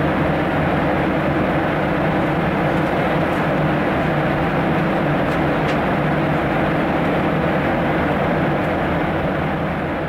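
Airliner cabin noise heard from a passenger seat: a steady rush of engine and airflow noise over a low hum.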